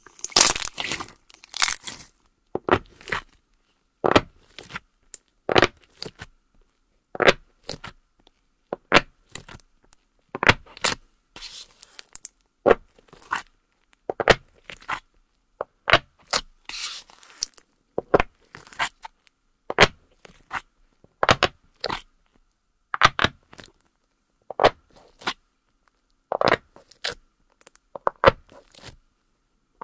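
Fluffy white NIVEA-cream slime being squeezed and pressed by hand and with a small plastic case. It makes short crackly squishes about every second or so.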